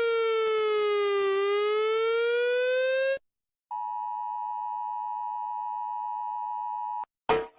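Emergency alert system tones: a buzzy electronic siren wail slides down in pitch and back up, then cuts off about three seconds in. After a short gap, a steady electronic alert tone of several pitches sounding together holds for about three seconds and stops, and a sudden loud burst comes right at the end.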